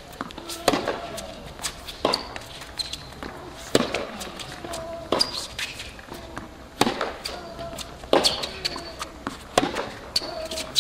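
A tennis ball struck back and forth with rackets in a baseline rally on a hard court. There are about seven sharp hits, one every second and a half or so.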